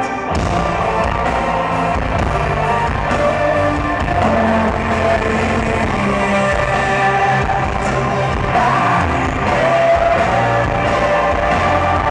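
Live rock band playing, heard loud from the audience in a theatre: electric guitars over bass and drums.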